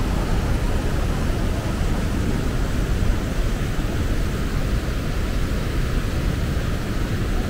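Whitewater river rapids rushing, a loud, steady roar of churning water.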